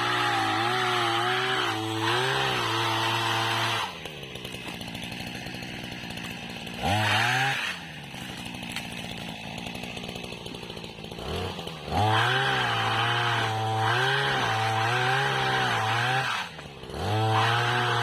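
Small petrol engine of a motorized oil-palm pole pruner (mesin egrek) revving hard, dropping to idle after about four seconds, blipping once, then revving up again about twelve seconds in with a brief dip near the end.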